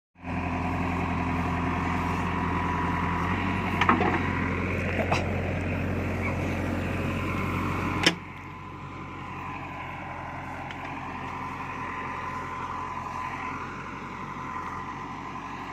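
Diesel engine of a JCB backhoe loader running hard while the machine works itself out of deep mud, with a few sharp knocks about four and five seconds in. About halfway through the sound suddenly drops quieter and the engine note wavers up and down.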